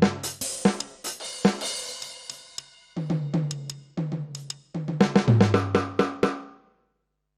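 Electronic drum kit voiced by a dbdrums db10 V3 module: quick tom fills stepping down in pitch from high tom to floor tom, with a cymbal crash near the start and snare and bass drum hits. The playing stops near the end.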